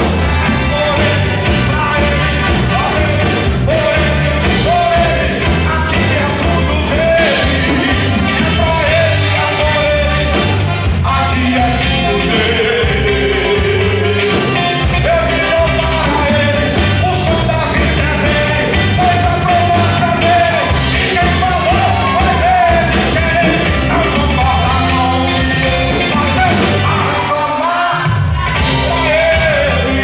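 Live band playing a rock-style gospel song on drum kit, electric guitars and keyboard, with a voice singing the melody over them.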